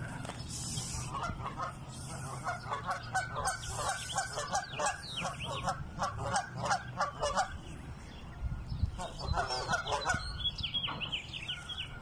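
A family of Canada geese calling: rapid runs of short honks, several a second, from about a second in until past the middle, then another burst near the end. Thin high goslings' peeps sound over them a little before the middle and again near the end.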